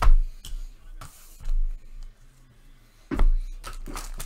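Baseball cards and their wrappers being handled: a few short taps and rustles, the loudest cluster about three seconds in.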